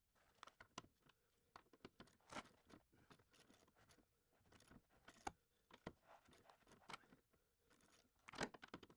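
Faint, irregular clicks, knocks and scrapes of hand tools at work on bolts, with sharper knocks a bit after five seconds in and near the end.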